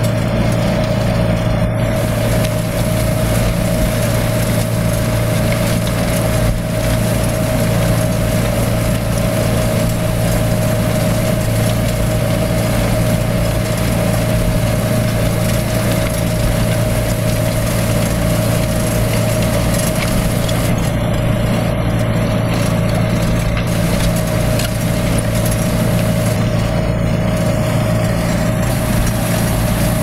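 Ford 7610 tractor's four-cylinder diesel engine running steadily under load, pulling a three-furrow plough through the soil.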